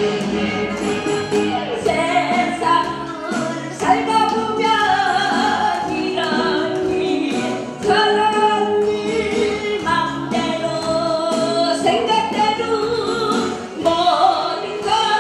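A woman singing a song into a handheld microphone over instrumental accompaniment, amplified through the hall's PA.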